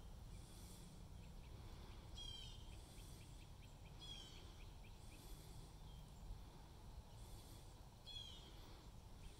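Faint bird calls over a low steady rumble. A short call comes three times, each a quick falling run of notes ending on a clear note, and the first is followed by a rapid series of ticks.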